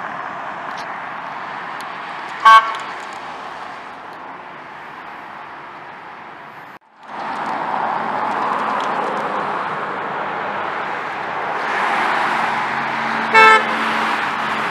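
Traffic passing on a street with two short horn toots, each a single brief beep: one about two and a half seconds in as a pickup truck drives off, the other near the end as a semi tractor goes by. The sound drops out for a moment in the middle.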